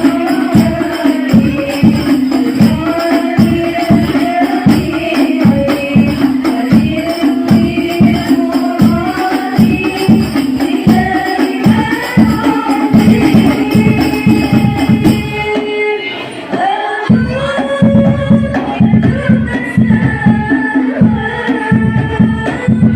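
Hadroh ensemble performing through a sound system: rebana frame drums beat a steady, even rhythm under voices singing a sholawat melody. About 16 seconds in, the drums drop out for roughly a second and then come back in.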